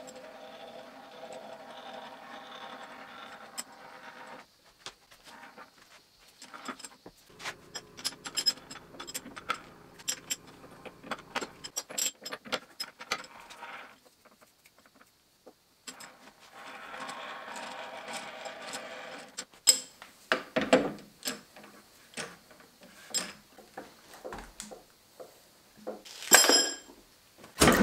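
Steel jaws of a three-jaw lathe chuck clinking and knocking as they are pulled out and fitted into the chuck body. Two stretches of a few seconds each carry a steady metallic rattle, the chuck scroll being wound with the chuck key. A loud clank comes near the end.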